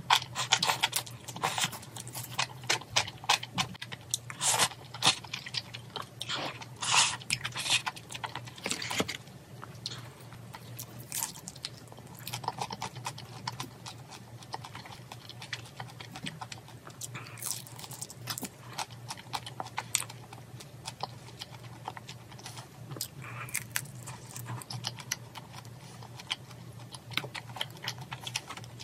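Close-miked eating: noodles slurped and chewed, then crispy fried pork bitten and chewed, making many short wet mouth clicks and crunches, densest in the first nine seconds or so. A steady low hum sits under it.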